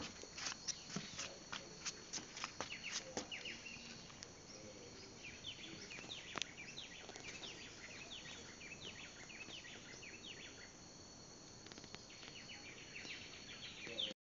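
Outdoor rainforest ambience: a steady high insect drone with many short bird chirps, and a quick run of sharp ticks in the first few seconds.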